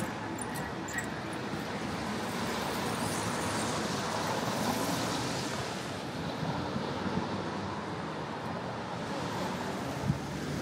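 City street traffic on wet pavement: a steady hiss of tyres and engines that swells about four seconds in, with a short knock near the end.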